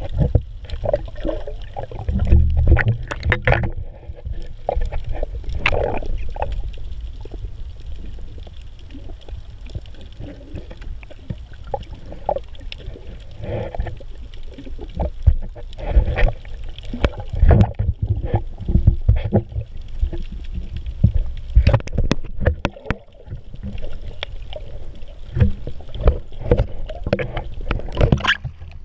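Muffled underwater sound picked up by a camera in a waterproof housing held under water: a low rumble of moving water with frequent irregular clicks and knocks.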